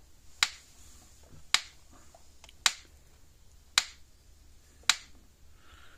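Gallagher BEV2 electric fence energizer clicking with each output pulse: five sharp clicks about a second apart. The click comes from its transformer's exposed metal plates as each pulse fires, and the repaired unit is putting out about 6,000 volts, fence to ground, right where it should be.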